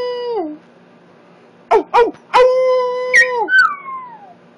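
A puppy howling: a held note ends with a downward drop about half a second in, then after a pause two short yelps lead into another long, steady howl that drops at its end and slides down into a fading wail near the end.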